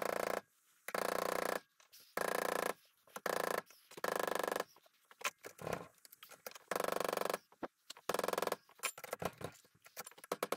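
Hammer blows driving a steel barrel wedge into the hickory handle in an axe head's eye, about six strikes in the first eight seconds, each ringing briefly. Lighter clicks and taps follow near the end.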